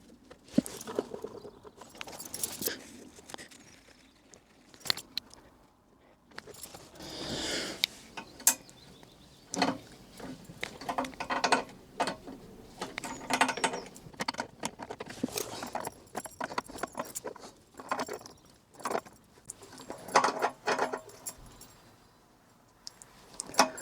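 Irregular metallic clicks, clinks and short scrapes as a brass elbow fitting is handled and screwed onto a compressor's delivery pipe, its threads coated in sealant.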